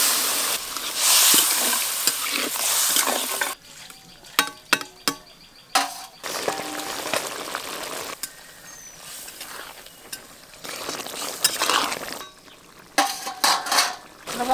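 Water poured into a kadai of hot oil and spice-coated brinjals sizzles and hisses loudly, cutting off sharply about three and a half seconds in. A few ringing metal clinks follow, along with the softer sound of the curry simmering, with more clinks near the end.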